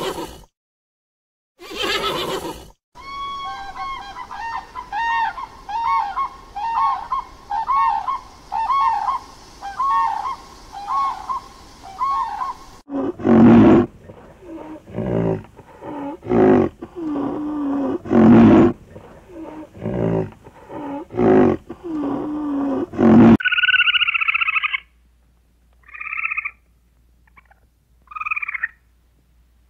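A string of different animal calls: a brief horse whinny at the start, then about ten seconds of evenly repeated calls, then a series of loud low calls, and short high chirps near the end.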